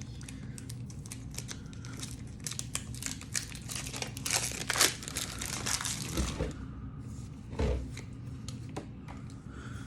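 Foil and plastic packaging of a Pokémon card pack crinkling and tearing as it is opened by hand, with a flurry of sharp crackles in the middle and a soft thump near the end.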